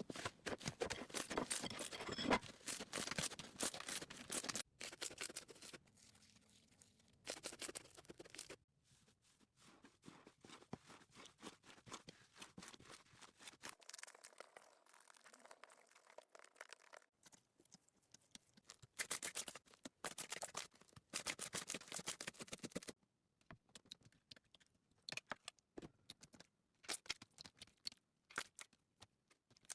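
Slime being pressed, stretched and poked by hand, giving bursts of fine, rapid crackling and popping that come and go in clusters with quieter squishing between.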